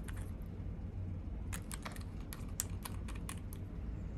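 Scattered light clicks and taps of a small plastic container being handled and opened, over a steady low hum.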